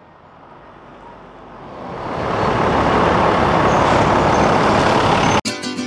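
A Blue Bird bus driving up and passing close by: its engine and tyre noise swell from quiet to a loud rush over about two seconds. The rush cuts off abruptly near the end as guitar music comes in.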